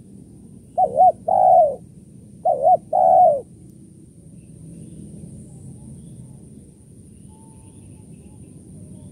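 Spotted dove cooing: two calls about a second and a half apart, each two quick short coos followed by a longer, falling coo. After them only a faint low hum is left.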